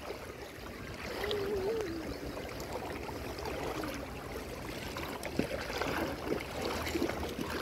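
Shallow, rocky river running steadily over stones, an even rush of water. A faint distant voice is heard briefly about a second in.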